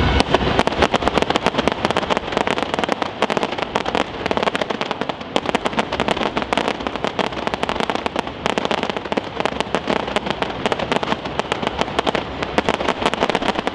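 Fireworks crackling: a dense, rapid run of sharp pops and cracks, many each second.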